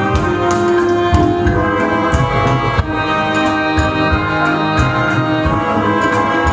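Rumba dance music playing: sustained instrumental tones over a steady percussion beat.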